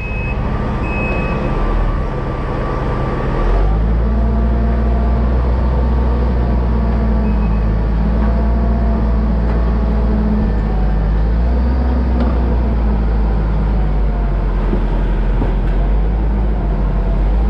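Diesel engine of heavy earthmoving equipment running loudly and steadily, revving up about three and a half seconds in and holding under load.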